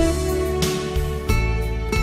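Soft instrumental background music, held tones with a new note or chord struck about every two-thirds of a second.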